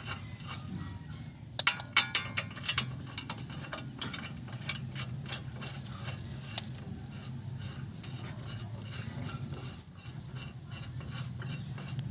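Metal hand tools and brake parts clicking and clinking during brake caliper work: a quick cluster of sharp clicks about one and a half to three seconds in, then scattered single clicks, over a low steady hum.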